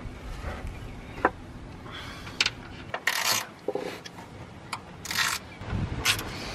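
Short metallic clicks and scraping as a ground cable's ring terminal and bolt are worked onto a bare, freshly sanded patch of steel truck frame, with a few brief scratchy strokes.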